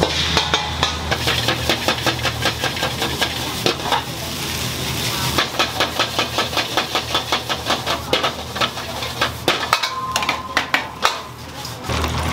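Metal ladle clanking rapidly against a wok, about four to five strikes a second, over sizzling food: stir-frying over a steady low hum.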